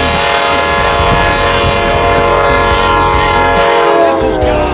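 Commuter train's multi-tone air horn sounding one long, loud chord as the train approaches. Near the end the chord's pitch falls as the train passes close by.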